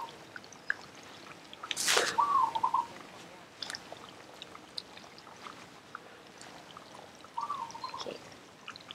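Chunks of potato dropped by hand into a pan of simmering mussaman curry: soft wet plops and light splashes over faint bubbling, with one louder splash about two seconds in. A short whistled chirp sounds twice, once just after that splash and once near the end.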